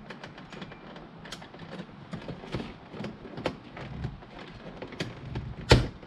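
Plastic center-console trim around a Porsche 987 Boxster's gear shifter being pried with plastic trim tools: scattered small clicks and scrapes, then one loud snap near the end as the trim's clips pop free.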